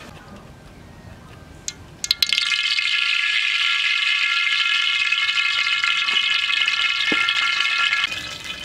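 A few sharp clicks, then oil in a hot wok suddenly starts sizzling loudly about two seconds in, holding steady before easing near the end.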